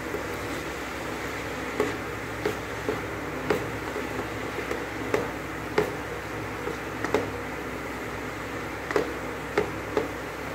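Wooden spatula stirring grated bottle gourd cooking in ghee in a steel pan: about a dozen irregular soft knocks and scrapes of the spatula against the pan over a steady hiss, as the gourd is cooked on low heat to drive off its water.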